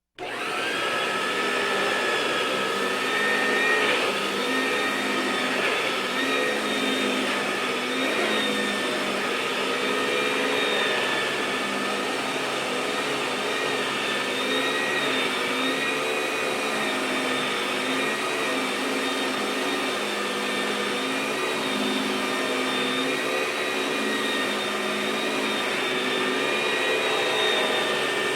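Vacuum cleaner running continuously, a steady motor whine over airflow noise, its pitch wavering gently. It starts abruptly at the very beginning.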